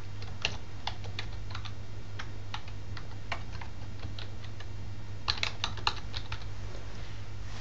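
Computer keyboard keys clicking as a word is typed: scattered single keystrokes, then a quicker run of several about five to six seconds in, over a steady low hum.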